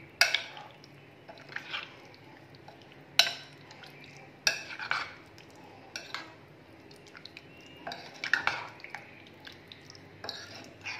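Metal spoon stirring raw chicken through a thick yogurt marinade in a glass bowl, the spoon clinking sharply against the glass every second or two.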